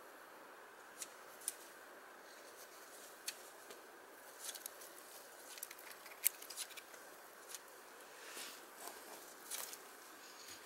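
Small kindling fire of burning tissue and thin dry twigs crackling, with scattered sharp clicks and snaps that come more often in the second half as the twig bundle is laid on the flame and catches.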